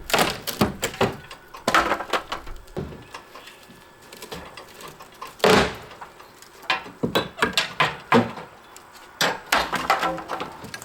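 Old wood siding being pried and torn off a house wall: irregular cracks and knocks of wooden boards in short clusters, the loudest single hit about five and a half seconds in.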